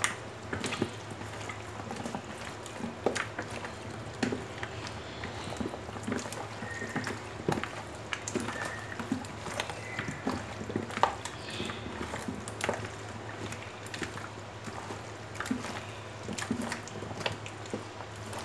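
Wet squelching and squishing as gloved hands knead marinated chicken pieces and vegetables in a plastic bowl, with irregular small slaps and clicks, over a steady low hum.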